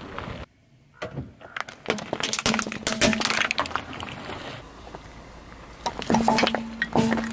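Sharp cracks and crunches of small objects being crushed under a car tyre: plastic toy bricks cracking, then stamped metal tins crunching flat in two loud cracks near the end. A short steady hum runs under the crushing.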